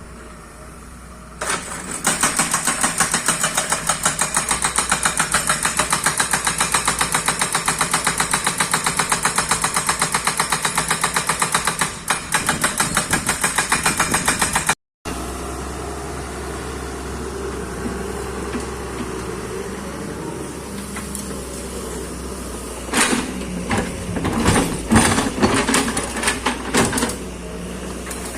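Excavator at work: a loud, fast, even pulsing rattle for about thirteen seconds, then, after a cut, a steadier engine rumble with irregular knocks and clanks near the end.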